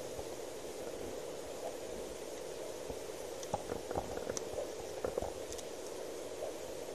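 Steady hiss of background noise through a body-worn camera's microphone, with a few faint taps and rustles in the middle.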